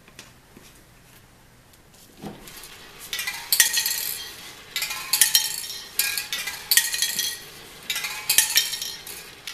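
Homemade motor-driven spray can mixer turning over slowly, its spray paint cans clinking and rattling in metallic bursts about every one and a half seconds as each half-turn tips them end over end. A soft knock comes about two seconds in, before the clinking starts.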